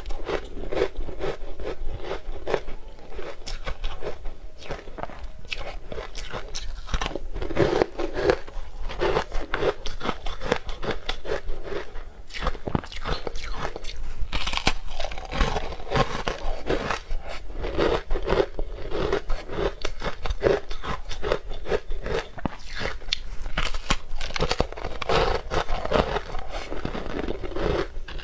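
Ice eating: teeth biting into and crunching a frozen block of sweet ice coated in green powder, a dense run of sharp cracks and crunchy chewing throughout.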